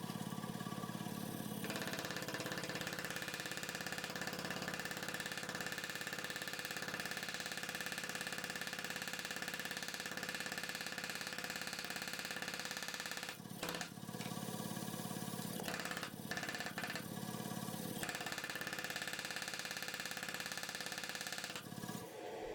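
A machine motor running steadily, with a few brief dips in level.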